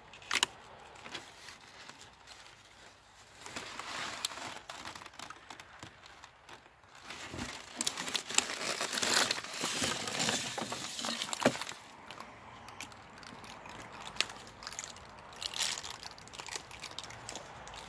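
Styrofoam packing blocks and crumpled packing paper being pulled apart and shifted by hand inside a cardboard box: irregular rustling, crinkling and scraping with sharp crackles, busiest in the middle and quieter over the last few seconds.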